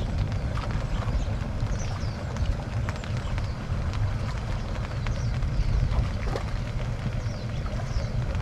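Steady low outdoor rumble, with faint short high chirps recurring about once a second and a few light clicks.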